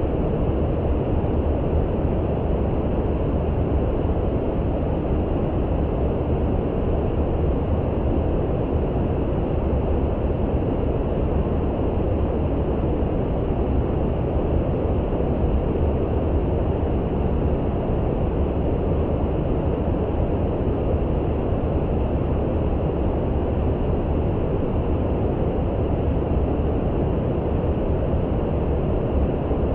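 Steady brown noise: an even, deep rushing hiss that holds the same level throughout, weighted toward the low end with little treble.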